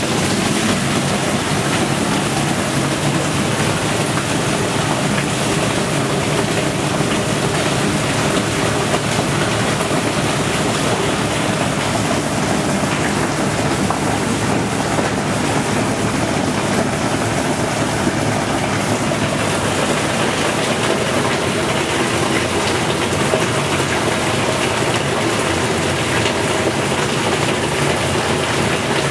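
Pump running steadily as crude oil and water are pumped into a tank, with the mixture pouring and splashing from a pipe into the tote.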